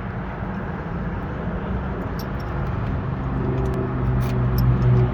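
A motor vehicle engine running, a steady low rumble with a hum that grows louder from about three seconds in, and a few light clicks.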